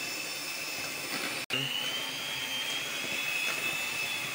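Electric hand mixer running steadily with a high motor whine as its beaters work through cake batter, with a momentary break about a second and a half in.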